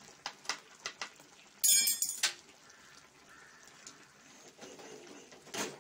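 Spoon knocking and scraping against a pan while stirring a simmering crab curry: a few light clicks, then one loud harsh scrape about two seconds in.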